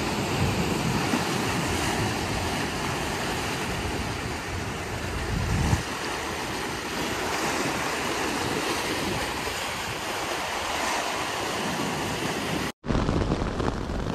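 Lake Superior waves washing and splashing against a rocky shoreline, with wind buffeting the microphone and one low thump about halfway through. Near the end it cuts off abruptly, and rain drumming on a tent fly takes over during a storm.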